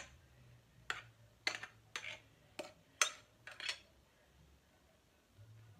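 A metal spoon knocking and scraping against a glass bowl as thick whipped cream is spooned out, about seven short clinks spread over the first four seconds. A faint low hum comes in near the end.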